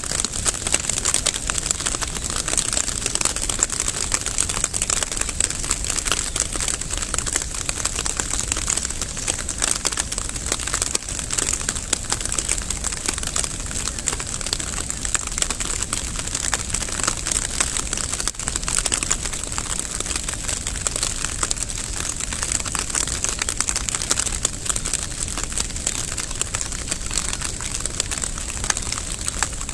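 Steady rain falling, a dense and even hiss of countless small drop ticks.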